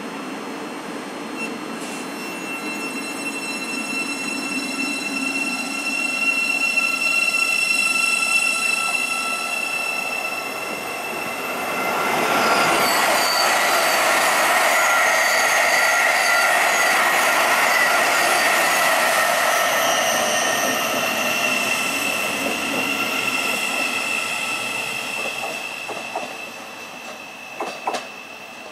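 Electric multiple unit moving through the platform, several steady high-pitched whines from its traction equipment and wheels over rail noise, growing louder about twelve seconds in. Near the end a few sharp clicks come as a second electric unit approaches.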